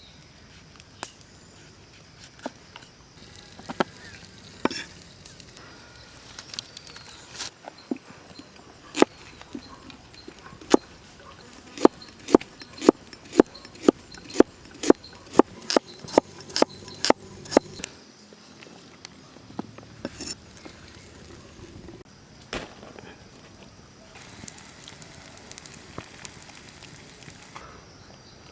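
A run of sharp knocks, a few scattered ones first, then a quick regular series of about two and a half strikes a second that stops abruptly, followed by a few more single knocks and a faint hiss near the end.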